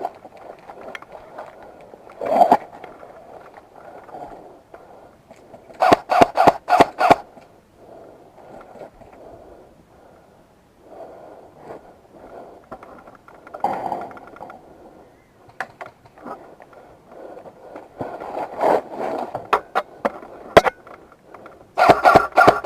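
Airsoft guns firing: quick strings of sharp cracks, about five shots a second, a few seconds in and again near the end, with single shots between. Under them runs a steady rustling and scraping, like movement through brush.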